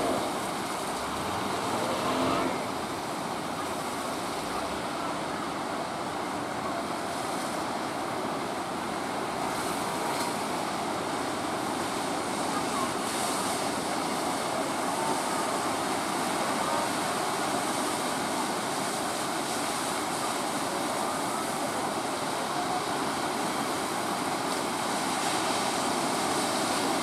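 Steady rushing of rough breaking waves and churning water, mixed with the drone of a small outrigger fishing boat's engine under way.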